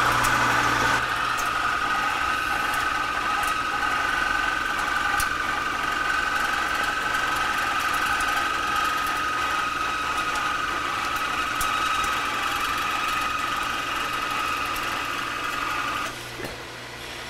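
Metal lathe taking a heavy roughing cut on a stainless steel bar with an indexable-insert tool: a steady, somewhat noisy mix of cutting whine and machine hum. About a second before the end the cutting noise drops away, leaving the quieter running lathe.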